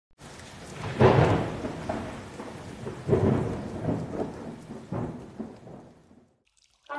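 Thunder rumbling over steady rain, three rolls in a row, the storm fading out near the end.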